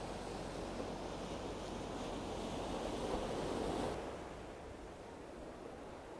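Sea waves surging and washing on the shore as a steady rushing noise. The surge swells about three seconds in, then falls away abruptly to a quieter hiss about a second later.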